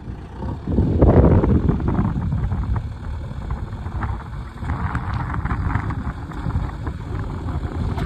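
JCB 3DX backhoe loader's diesel engine running under load as the machine works, getting louder about a second in.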